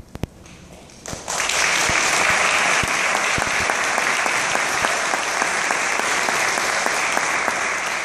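Audience applauding: the clapping starts about a second in, holds steady and dies away near the end.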